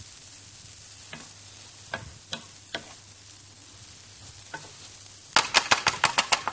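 Spoon stirring food in a frying pan over a faint sizzle: a few scattered clicks, then from about five seconds in a rapid run of sharp clicks, about eight a second, as the spoon knocks against the pan.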